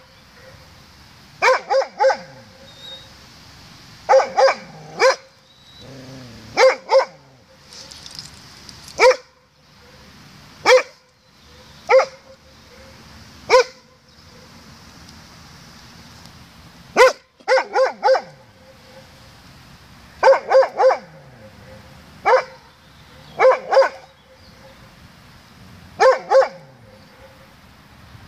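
Doberman barking in loud, sharp barks, singly or in quick runs of two or three, with pauses of a second or more between runs. It is answering its own barks echoing back across the open square.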